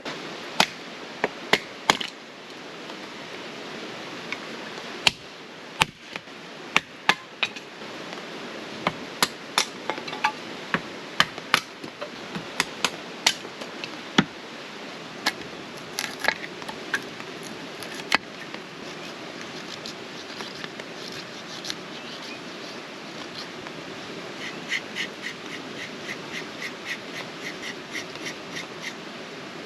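Firewood being split into kindling for a campfire: a run of sharp, irregular knocks, then a quicker series of light, even taps about four a second near the end.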